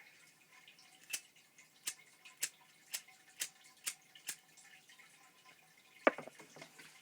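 A series of about seven sharp clicks, roughly half a second apart, then a single louder click about six seconds in, from a Zippo lighter being handled.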